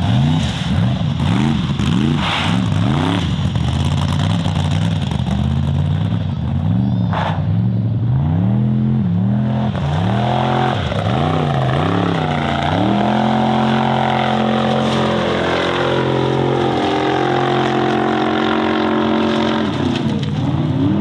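Formula Offroad hill-climb buggy's engine under hard throttle, its revs rising and falling about once a second as the driver works the throttle up the loose gravel slope, then held high and steady for the last several seconds of the climb before dropping off near the end.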